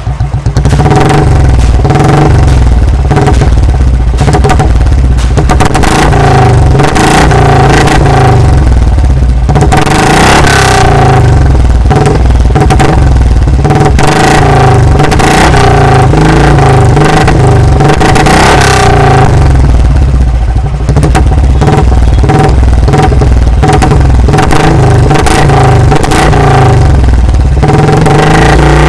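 Royal Enfield Bullet's single-cylinder engine running through an aftermarket single-tube barrel (cannon) exhaust, very loud. It picks up from an even idle thump about half a second in and is held revving, with a brief dip about two-thirds of the way through.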